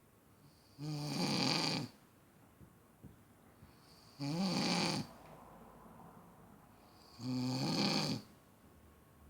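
A drunk person snoring: three loud snores about three seconds apart, each about a second long, with quiet between them.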